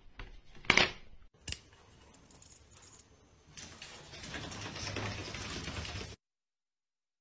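A plastic laundry basket clatters sharply as a cat leaps out of it, followed by a lighter click. A few seconds later comes a stretch of scuffling, rustling noise that cuts off suddenly.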